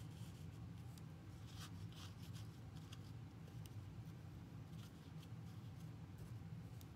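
Faint rustling of yarn being drawn through a cardboard loom's warp strings with a plastic weaving needle, with a few light ticks, over a steady low hum.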